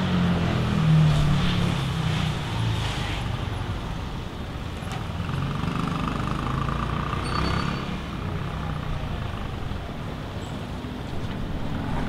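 City road traffic: a vehicle engine's low hum fades over the first few seconds, leaving a steady hiss of distant traffic.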